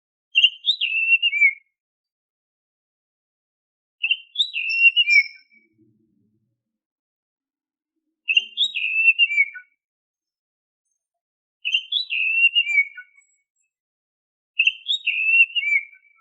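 Oriental magpie-robin (kacer) whistling the same short phrase five times, about every three and a half seconds. Each phrase is a quick run of clear notes stepping down in pitch.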